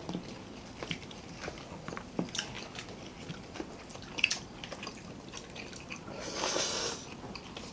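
Close-miked eating sounds of people eating by hand: chewing, with scattered small crunches and clicks of crisp fried food. There is one sharp click about four seconds in, and a denser crunching rustle for about a second near the end.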